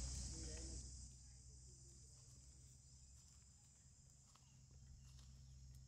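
Near silence: a faint steady high insect hiss, with a few faint clicks.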